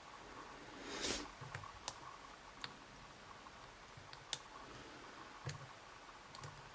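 Faint, scattered small metallic clicks, about half a dozen, from a Sparrows Low HD pick being wiggled and jiggled against the sliders inside a YATO dimple lock, trying to set them.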